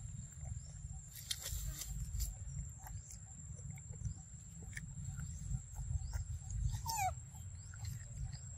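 A macaque chewing and biting ripe mango, with scattered wet smacking clicks, over a constant low rumble and a steady high whine. A single quick falling chirp comes about seven seconds in.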